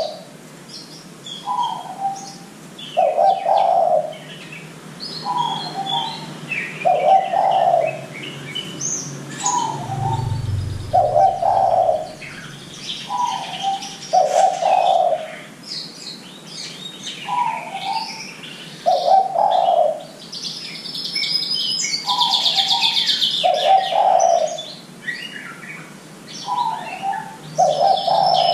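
Spotted dove (derkuku) cooing over and over: a short bent note, then a longer low coo, repeated about every two and a half seconds. Small birds chirp and twitter higher above it, with a loud stretch of dense twittering about three quarters of the way through.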